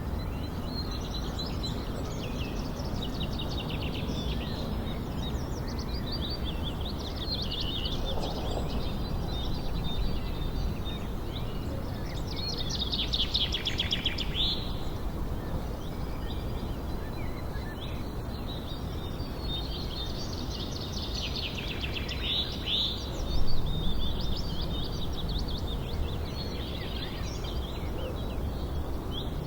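Birds chirping and trilling over a steady low background hiss, with louder rapid trills about 13 seconds and 23 seconds in.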